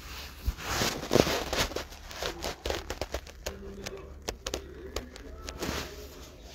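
Handling noise from a phone's microphone: irregular rustling, scraping and clicks as the phone is shifted about in the hand and rubs against clothing.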